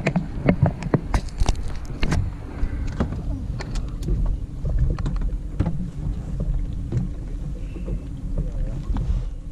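Fishing boat's engine running steadily, with scattered sharp knocks and clatters on deck.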